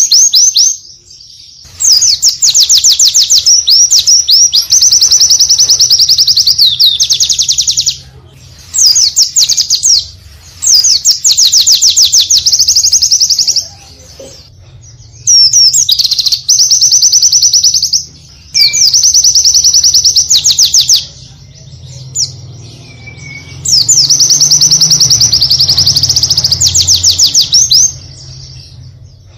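A white-eye (pleci) sings repeated bursts of very rapid, high trilled notes, each burst lasting from about a second to several seconds, with short pauses between. A faint low hum runs underneath.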